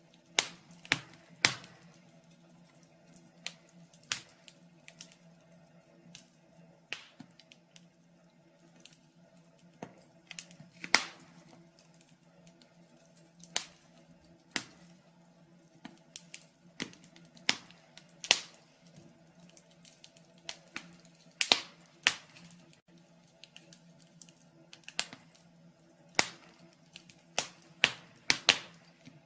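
Wood fire burning in a fireplace, crackling: irregular sharp pops and snaps, some much louder than others, over a faint steady low hum.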